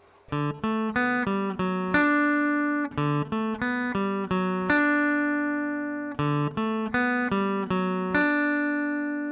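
Squier Stratocaster electric guitar with a clean tone, playing a single-note riff: a quick run of picked notes ending on a held note, then the run again, ending on a long note that rings out.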